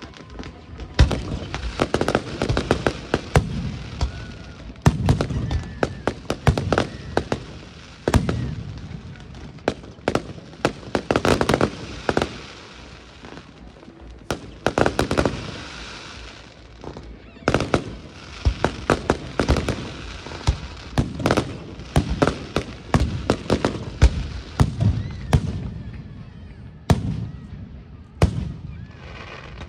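Aerial fireworks display: shells launching and bursting in dense clusters of sharp bangs, with short lulls between volleys every few seconds.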